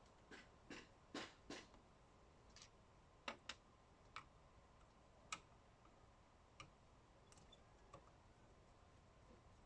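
Faint, irregular light clicks and taps, about a dozen, bunched in the first couple of seconds and then sparser: small hard parts of a string trimmer being handled and fitted by hand.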